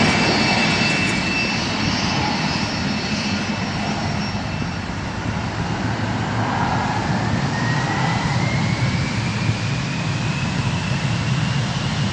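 Jet airliner engines running at high power, a steady dense rush with a thin whine that rises in pitch from about five seconds in, typical of engines spooling up for a takeoff roll.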